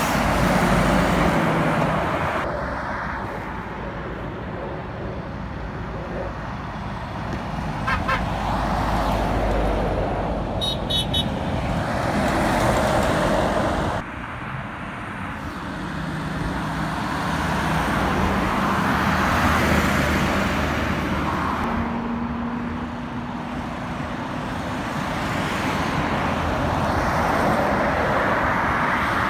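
Road traffic passing on a busy dual carriageway: lorries and cars go by in waves, engine and tyre noise swelling and fading every few seconds. A Mercedes-Benz Actros articulated lorry passes close by at the start.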